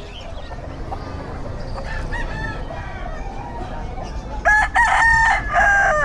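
A young rooster crowing once, a loud, broken, squeaky crow lasting about a second and a half near the end. Fainter bird calls come about two seconds in.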